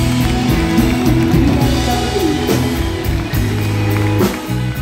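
Live country band playing: acoustic and electric guitars over a drum kit keeping a steady beat.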